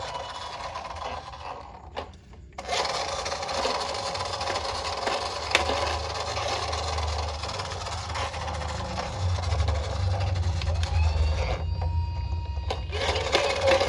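Toy ambulance minicar rolling along a hard surface: a steady rasping rub from its small wheels. It stops briefly about two seconds in and again near the end.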